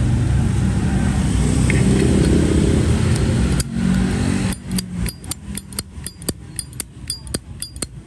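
Street traffic with a motorbike engine running close by, loud for the first half and dying away about four and a half seconds in. After that comes a quick run of sharp clicks, about three a second.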